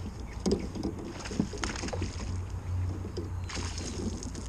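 Small largemouth bass being reeled in and lifted from the water beside a kayak: a few sharp knocks about half a second in and again around a second and a half, then a brief splash near the end, over a steady low rumble.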